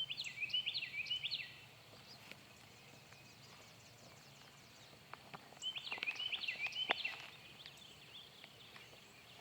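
A songbird singing two short phrases of quick chirping notes, about five seconds apart.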